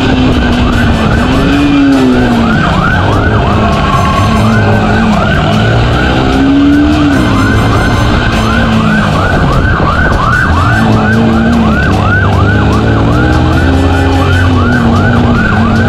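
Police motorcycle siren on a fast yelp, rising and falling about three times a second. Under it the motorcycle's engine runs with its pitch rising and falling as the bike rides in pursuit.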